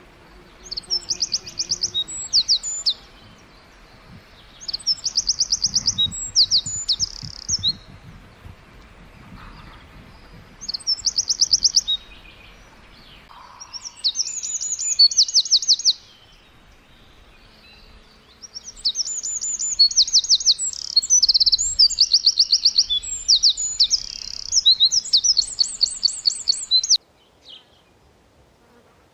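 A songbird singing in repeated bouts of fast, high chirps, each bout lasting a second or two with short pauses between, the last stretch longer and nearly continuous before stopping suddenly near the end.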